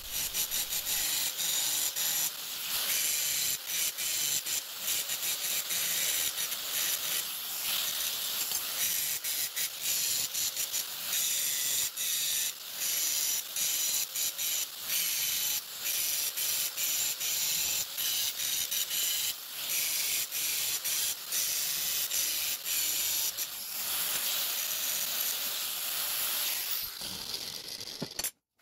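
Angle grinder grinding down the weld beads on a steel horseshoe letter: a steady high hiss broken by frequent brief dips as the disc bites and lifts off the metal. It stops shortly before the end.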